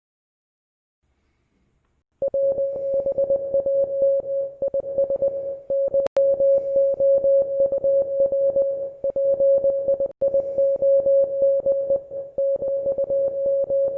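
Morse code sent as a single steady beeping tone in quick dots and dashes. It starts about two seconds in and runs on with a few brief breaks, likely the gaps between words.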